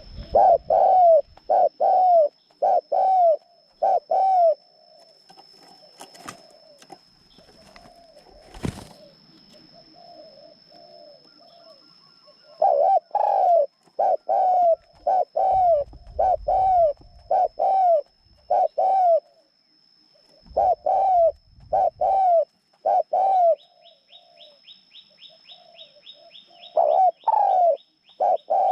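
A decoy bird calling in runs of short, arched notes, about two a second, with quieter lulls between the runs. A steady high whine runs behind it, and two sharp knocks fall in the first lull.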